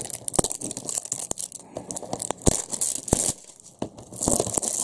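Cellophane shrink-wrap being torn and peeled off a plastic screwdriver-bit case, crinkling and crackling irregularly, with a few sharp clicks.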